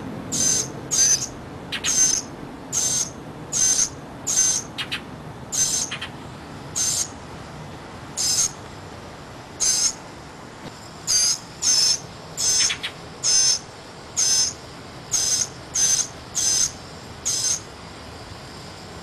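Northern mockingbird fledgling giving its begging call over and over: short, high calls about one a second, some closer together, that stop shortly before the end.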